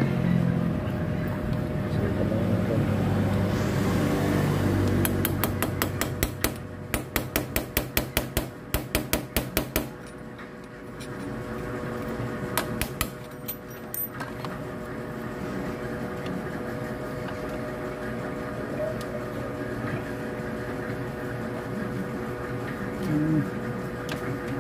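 Quick metal-on-metal hammer taps, about three a second for some five seconds, then a few single strikes, on the steel drive sprocket and output shaft of a motorcycle engine. A steady hum runs underneath.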